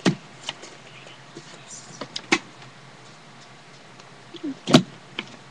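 A few separate clicks and knocks of small craft-kit pieces being handled, the loudest one about three quarters of the way through.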